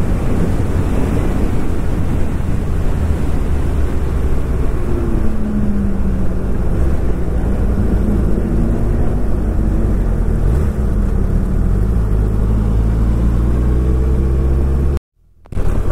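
Suzuki Hayabusa's inline-four engine running under way, its note dropping about five seconds in. The sound cuts out for about half a second near the end.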